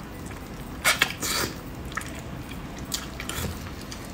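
Wet mouth sounds of eating braised meat off the bone: lip smacks, sucking and chewing, with a cluster of sharp wet clicks about a second in.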